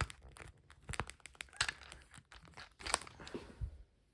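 Irregular clicks, taps and rustles of a small foam RC plane and its plastic landing gear being handled and pressed into place by hand. The handling stops about three and a half seconds in.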